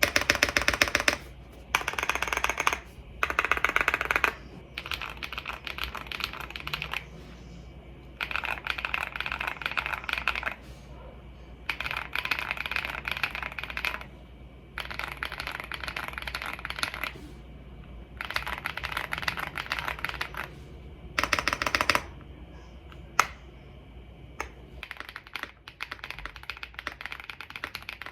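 Typing on a mechanical keyboard, in bursts of rapid keystrokes lasting one to three seconds with short pauses between them. In the last few seconds the key presses thin out to scattered clicks, with one sharp click among them.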